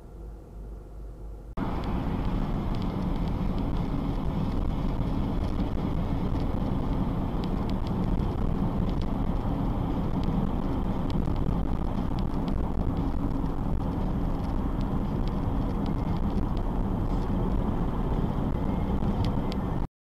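Steady road noise inside a moving car: tyres on a wet road and the engine running, with scattered light ticks. It starts abruptly about a second and a half in and cuts off abruptly just before the end.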